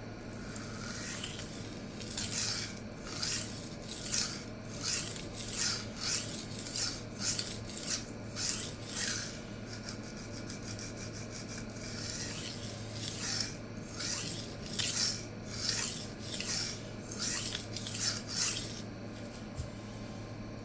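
A 52100 high-carbon steel chef-knife blade being stroked across a wet diamond sharpening stone, a scraping rasp with each pass. The strokes come in two even runs, about one and a half a second, with a pause of a few seconds between them. The passes are raising a burr along the full length of the edge.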